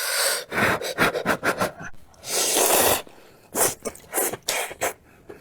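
Close-miked eating: wet chewing and mouth clicks in quick irregular bursts, with a longer breathy, hissing noise about two and a half seconds in.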